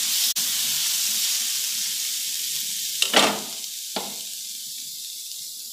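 Onion-tomato masala sizzling in hot oil in a non-stick frying pan as it is stirred with a spatula. There is a brief louder burst about three seconds in and a click a second later, and the sizzle is quieter after that.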